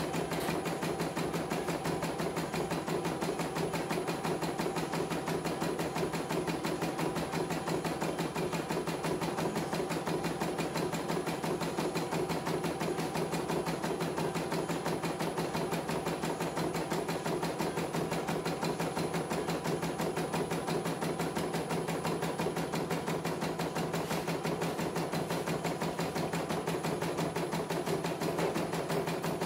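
CNY E900 computerized embroidery machine stitching out a test design, its needle going in a fast, steady rhythm of strokes without stopping.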